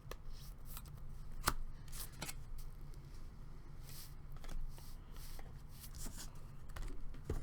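Trading cards and their pack being handled: irregular light clicks, slides and rustles of card stock as cards are pulled out and gone through.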